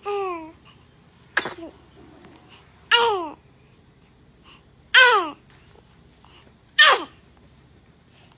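A baby's short vocal bursts, five of them about two seconds apart, each falling in pitch; some start with a hissing, sneeze-like rush of air.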